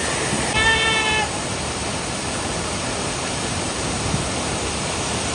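Steady rushing of a waterfall. About half a second in, a brief high-pitched call of unknown source holds one pitch for just over half a second.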